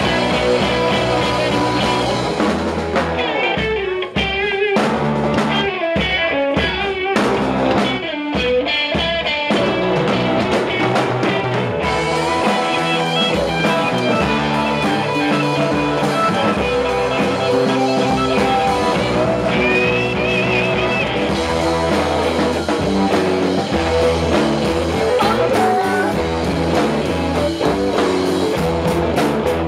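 Live rock band playing electric guitars, bass guitar and drum kit, with a woman singing. A few seconds in, the band plays a stretch of stop-start hits with short breaks between them, then settles back into steady playing.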